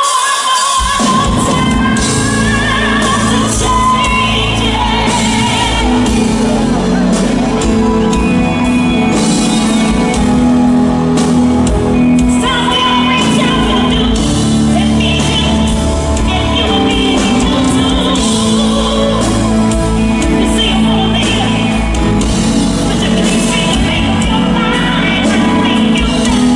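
Live funk band playing loudly with singing, heard from the audience seating of a large concert venue.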